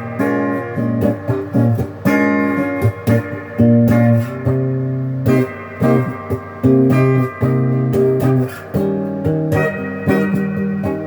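Epiphone Les Paul Junior electric guitar on its single bridge pickup, played clean through a Crate GX15R combo amp. Chords are strummed and let ring, then cut off with short breaks between phrases.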